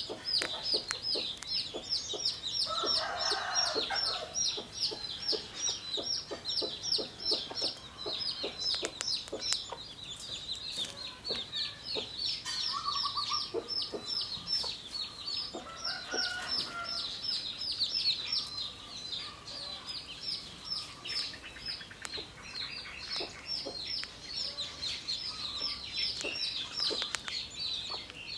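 A rapid, steady run of short high chirping calls, about five a second, with a few lower clucking rattles and scattered small clicks.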